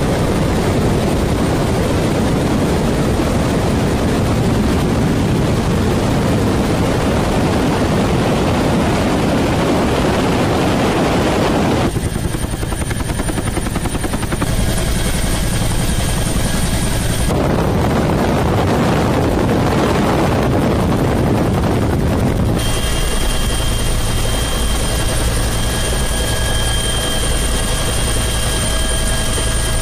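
Helicopter engine and rotor noise heard from inside the cabin: a loud, steady, deep rumble with a whine on top. Its character changes abruptly a few times, and a high whine is clearest near the end.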